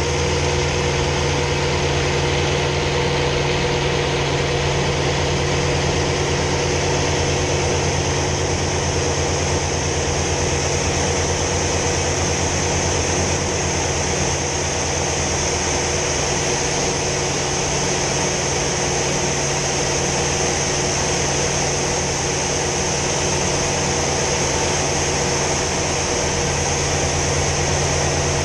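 Hawker Sea Fury T20's piston engine running steadily in flight, heard from inside the cockpit as a loud, even drone over rushing air, its low tones shifting slightly around the middle and again near the end.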